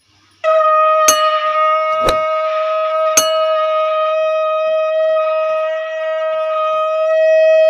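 Conch shell (shankh) blown in one long, steady note that starts about half a second in and swells louder near the end. Three sharp clicks sound over it, about a second apart.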